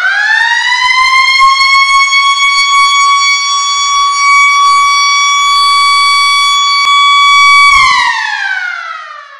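Electric school siren winding up to a steady high wail, holding it for about seven seconds, then winding down and fading near the end. The sound is the signal for the end of class.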